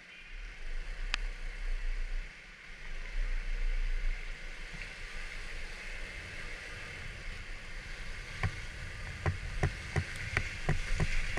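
Kymco Like 125 scooter on the move on a wet road: steady road and wind noise over a low rumble, with a sharp click about a second in. From about eight seconds in comes a run of quick knocks and rattles, two to three a second, as the scooter jolts over a rough, bumpy surface.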